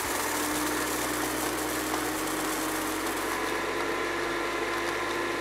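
Electric blender with a spice-grinder jar running steadily, grinding whole cloves, cumin seeds, cinnamon sticks, black pepper and cardamom into a powder.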